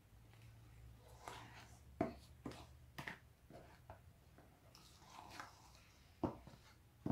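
Wooden spoon stirring thick cornmeal cake batter in a stainless steel bowl, gently folding in the baking powder: faint irregular scrapes and soft knocks of the spoon against the bowl.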